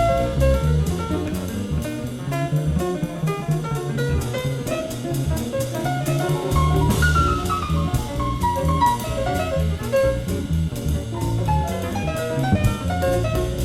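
Live small-group jazz, taped off an FM broadcast onto cassette: double bass and drum kit with cymbals keep time under a melodic solo line of quick notes, with a descending run about halfway through.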